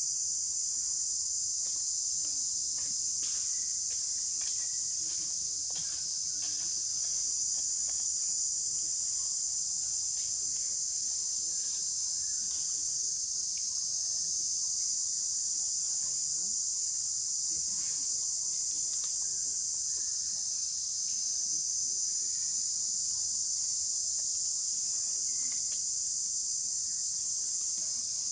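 Steady, high-pitched chorus of insects shrilling without a break, with a few faint ticks beneath it.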